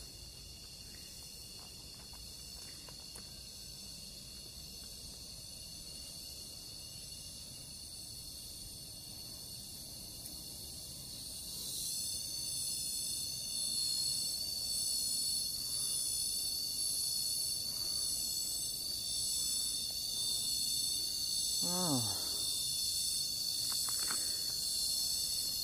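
A steady, high-pitched chorus of insects calling from the surrounding forest, growing clearly louder and more pulsing about halfway through. A short sliding sound falls in pitch near the end.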